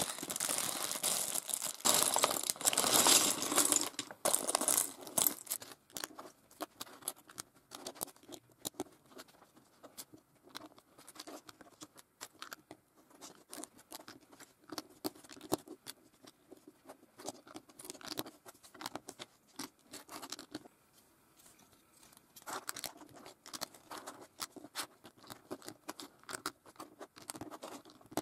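A plastic bag of LEGO pieces crinkling and rustling loudly for the first five seconds or so as it is handled. Then the small plastic clicks and clatter of LEGO bricks being picked up and pressed onto baseplates, in scattered taps and short flurries.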